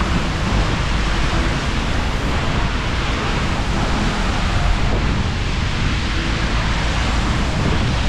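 Steady rush of Seljalandsfoss waterfall, an even, unbroken roar of falling water.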